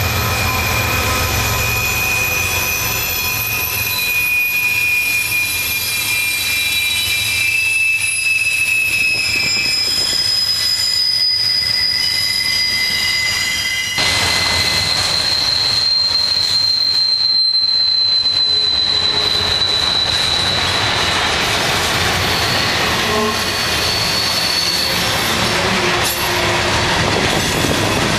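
Double-stack intermodal freight cars rolling past with loud, steady, high-pitched wheel squeal. Several squealing tones sound at once and shift over time, a new stronger one taking over about halfway through.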